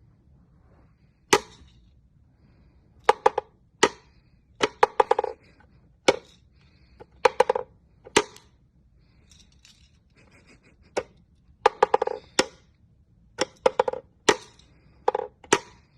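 Irregular sharp taps or knocks on a hard object, each with a short ringing tone, often in quick pairs or small clusters, about twenty in all.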